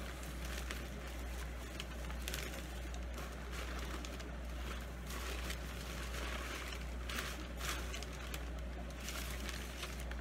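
Packing paper and stuffing rustling and crinkling in a cardboard shipping box as it is unpacked by hand, in short scattered bursts over a steady low hum.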